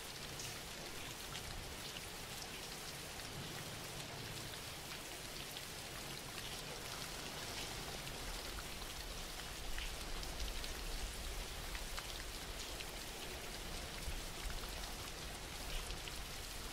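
Steady rain falling: an even hiss with many scattered individual drop ticks, and a low rumble underneath that grows a little stronger about six seconds in.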